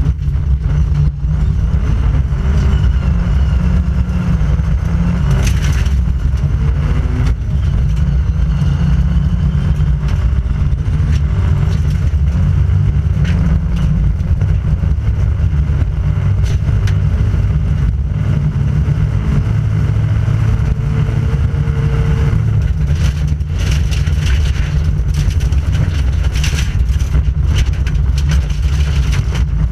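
Volvo 940 rally car's engine running hard under load, heard from inside the cabin, with loud road noise and frequent short knocks as gravel and bumps hit the underbody.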